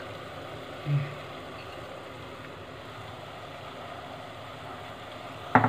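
Low steady hiss of a lit gas stove burner under an aluminium pressure cooker, with a soft bump about a second in and a sharp clink of a wire whisk against the steel tin near the end.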